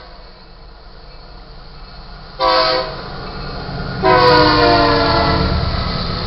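Air horn of the lead locomotive, BNSF 9849, an EMD SD70MAC, sounding a short blast about two and a half seconds in and then a long blast about four seconds in, the close of the grade-crossing horn signal. Its pitch drops slightly at the end of the long blast as the locomotive passes. Under the horn, the rumble of the diesel locomotives grows louder as the train arrives at the crossing.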